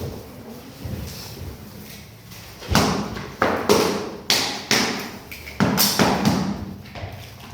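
About eight sharp knocks in quick succession over three and a half seconds, consistent with SPC flooring planks being tapped into place with a mallet.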